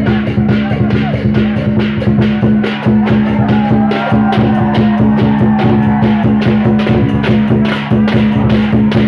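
Loud drum and cymbal music for a dragon dance, with strokes at about three or four a second over a steady low hum.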